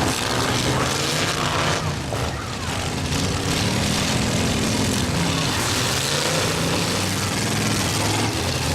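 Several demolition derby truck engines running and revving at once, their pitch rising and falling.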